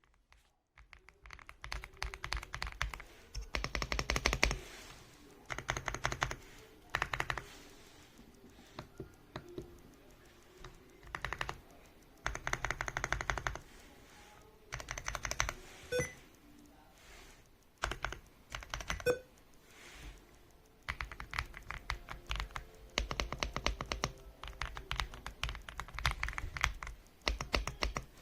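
Typing on an AULA F75 mechanical keyboard with pre-lubed Reaper switches: rapid keystroke clatter in bursts of a second or two, with short pauses between.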